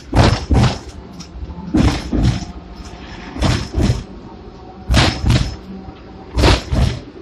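Hong Kong double-decker tram's wheels clacking over rail joints while running along the street track: pairs of knocks about every one and a half seconds, over a steady low running hum.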